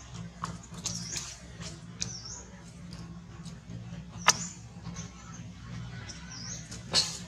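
Short high-pitched chirping calls, each dipping and rising in pitch, repeated every second or two, with two sharp clicks about four and seven seconds in, the second the loudest sound, over a low steady hum.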